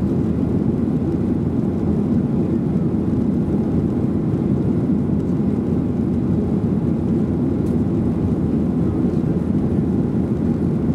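Steady cabin noise inside a Boeing 737-800 in flight: the low, even rumble of its CFM56 jet engines mixed with the rush of air along the fuselage.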